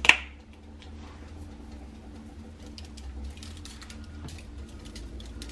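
Steady low hum of a garbage truck running outside, with faint scattered ticks of dried parsley being shaken onto buttered corn on aluminium foil. A brief sharp hiss right at the start is the loudest moment.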